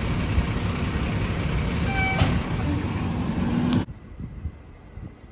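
McNeilus rear-loader garbage truck packing a load: the engine is running under load and the hydraulic packer is working, with a brief whine about two seconds in. About four seconds in the sound cuts off abruptly to a much quieter, duller truck noise.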